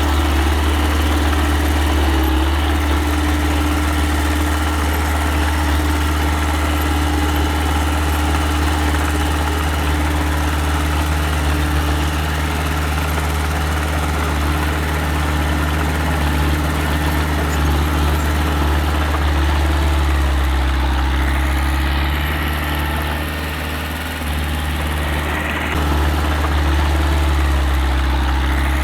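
Engine of a small earthmoving machine running steadily with a deep, even hum. Its note drops and eases about two-thirds of the way through, then picks up again near the end.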